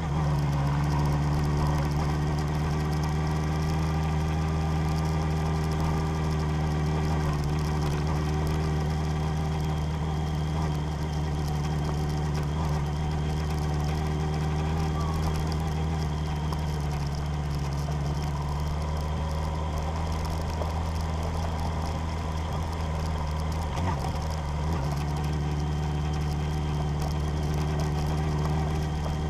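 Motor vehicle engine running steadily at a low, even speed, a constant hum with little change in pitch.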